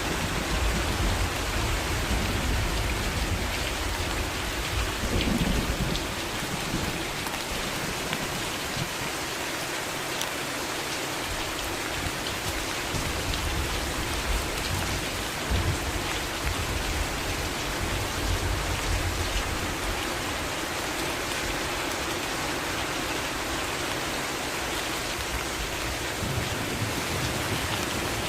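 Heavy rain falling steadily, with low rumbles of thunder through the first several seconds and again in the middle.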